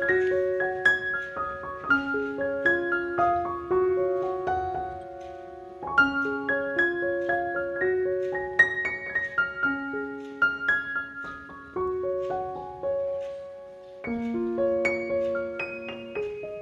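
Background piano music: a gentle melody of single struck notes in short phrases that repeat about every two seconds.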